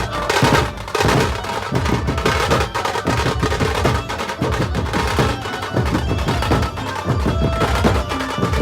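Loud music with fast, dense drumming and heavy bass.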